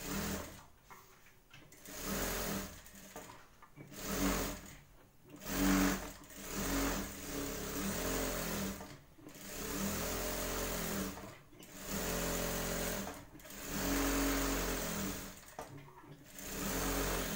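Industrial sewing machine stitching a blouse piece in short stop-start runs, about eight of them, with brief pauses between runs as the fabric is turned along its edge.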